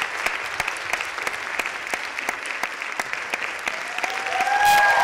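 Theatre audience applauding steadily with dense clapping. Near the end the applause swells, and cheers and whoops from the audience join in.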